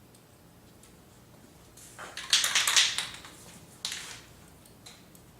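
SEM aerosol primer spray can hissing in two bursts, a longer loud one about two seconds in and a short one near four seconds, held upside down to spray out and clear the nozzle.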